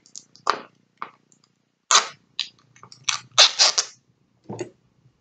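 Paper liner being pulled out of a setting-powder container and crinkled, a series of irregular sharp crackles, loudest in a quick cluster about three and a half seconds in.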